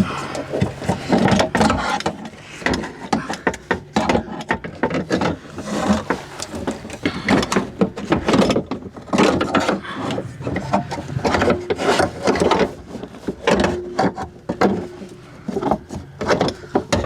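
Window regulator assembly being worked into a car door: irregular clattering, knocking and scraping of metal rails, cables and plastic parts against the door's inner panel, with a short squeak a few times near the end.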